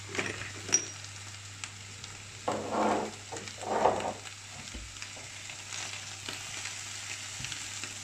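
Sliced potatoes and ham frying in a pan, a steady sizzle, with two short louder sounds about three and four seconds in.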